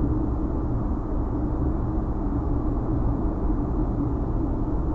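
Steady road and engine noise inside a moving car's cabin, recorded by a dash cam's built-in microphone, with a faint steady hum underneath.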